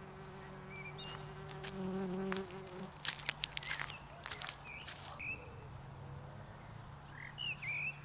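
A steady low buzzing for about the first three seconds, then a quick run of clicks and knocks, with a few short bird chirps after it and again near the end.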